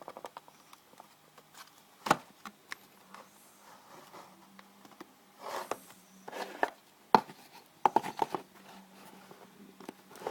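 Sharp metal clicks and knocks from handling a Zippo table lighter: single clicks about two and seven seconds in, and a quick run of three or four near the end, with two short rasping sounds in between.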